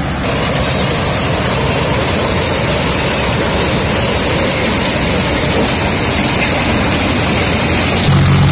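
Maize harvester on a John Deere 5310 tractor cutting dry maize stalks: a loud, steady rushing noise of the header and crop over the running machine. About eight seconds in it gives way to the steady low drone of the tractor's three-cylinder diesel engine.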